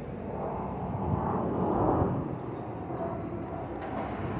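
Jet airliner engine noise from a plane passing overhead after takeoff: a steady distant rush that swells about two seconds in, then eases slightly.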